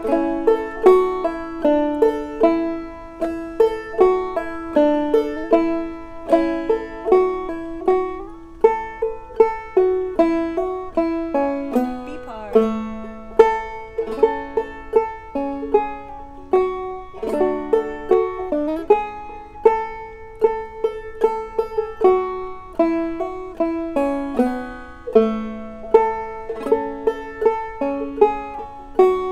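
Five-string banjo played clawhammer style in gDGBD tuning, capoed at the second fret into the key of A, picking a driving three-part old-time fiddle tune at a steady, quick pulse.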